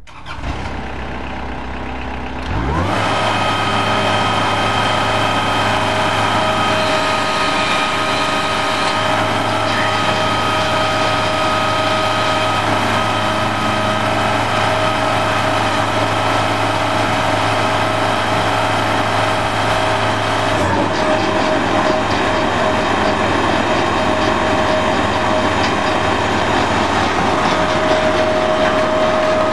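45-horsepower Kubota engine on a Hot Shot aggregate and lime loader, idling and then throttled up about three seconds in. It runs steadily at speed with a steady whine as it drives the conveyor belt; the deep hum drops out about two-thirds of the way through.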